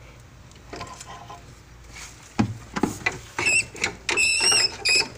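A cornered rat squealing in distress: a run of short, high-pitched squeals that begins about three seconds in, just after two dull knocks.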